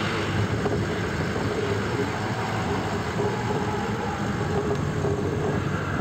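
Steady low running noise of a vehicle, a constant rumble with a low hum and no distinct events.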